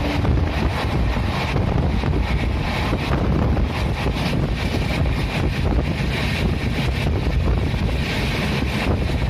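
Train running at speed: a steady low rumble of wheels on the track, with wind buffeting the microphone.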